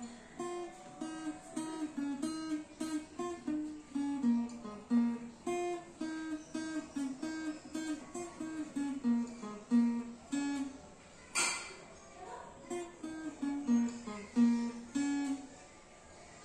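Givson cutaway acoustic guitar played as a single-note melody, picked one note at a time at about two to three notes a second. About eleven seconds in the melody pauses, with one sharp click, then resumes, and it stops about fifteen and a half seconds in.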